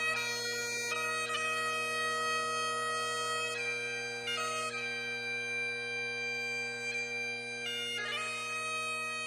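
Music: a slow melody played over a steady, unchanging drone.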